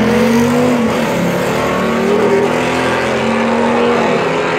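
Two cars launching from a standing start in a drag race and accelerating hard away, their engine notes climbing and dropping back at each upshift.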